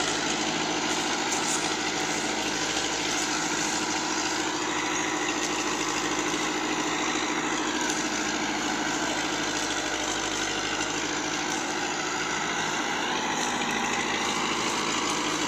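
Massey Ferguson 265 tractor's three-cylinder diesel engine running steadily under heavy load as it hauls an overloaded sugarcane trolley, the weight enough to lift its front wheels off the ground.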